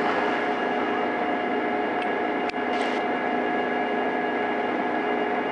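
A steady hum and hiss holding several constant tones, with one brief click about halfway through.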